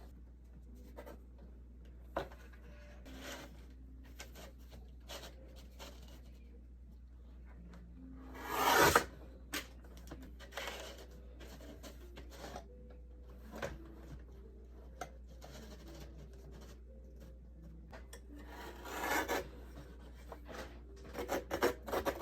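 Paper being cut, with one long cutting stroke about a third of the way in and another near the end. Fainter short strokes and paper handling sounds come between, and a quick run of sharp clicks closes it, over a steady low hum.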